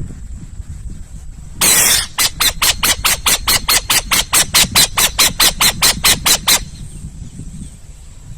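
Owl calling: a harsh hissing screech, then a rapid, even series of about twenty rasping notes, some four a second, that stops abruptly. A low rumble of wind or handling lies underneath.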